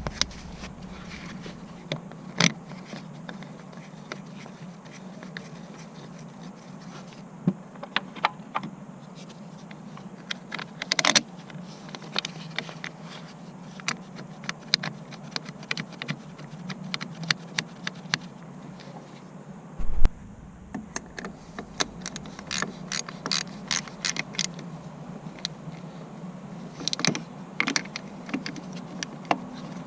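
Irregular metallic clinks, clicks and scrapes of hand tools and car parts being handled, with a brief louder rattle about a third of the way in and a heavy knock about two-thirds of the way through; a faint steady hum runs underneath.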